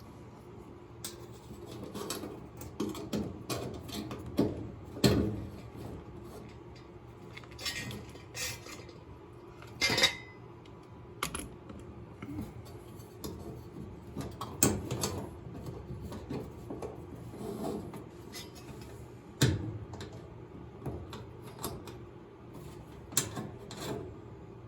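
Irregular metallic clicks and clinks of a hand tool and small screws as the new power cord's wires are fastened to a dryer's terminal block. A few sharper knocks stand out among them.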